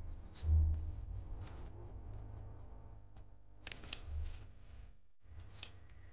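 Quiet workbench handling noises: a low bump about half a second in, then scattered light ticks and short scratches of fingers and small plastic parts on paper, over a faint low hum.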